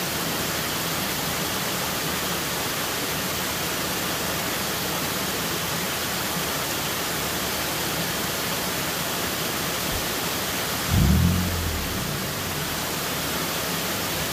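A steady, even hiss, with a brief low thump about eleven seconds in.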